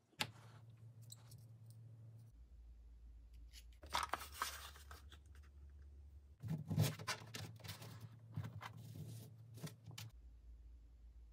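Clicks, rustles and scrapes of hands handling a plastic drill-bit case and a thin steel razor blank on a workbench, in a few short bursts.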